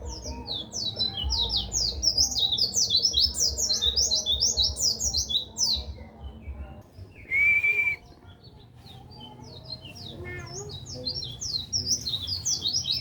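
White-eye (pleci) singing a fast, continuous twittering song of quick, high, downward-sweeping notes. The song breaks off about six seconds in, a loud steady tone lasting under a second sounds about seven seconds in, and the twittering resumes a few seconds later.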